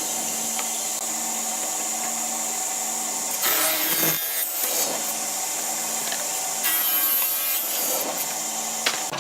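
Woodworking power tool running steadily, with two louder stretches of cutting or working into wood, one about halfway through and one near the end.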